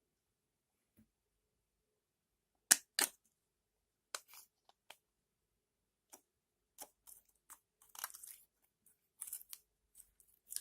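Store-bought slime being handled and mixed, making scattered sharp sticky clicks and pops. The loudest are two close together about three seconds in, with a denser crackling run about eight seconds in.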